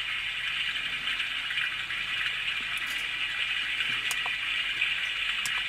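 Recorded sound of water filling a steam locomotive's tank, a steady rushing hiss, played by the DCC sound decoder through the small speaker of a Bachmann OO9 Baldwin model locomotive. A few light clicks sound over it.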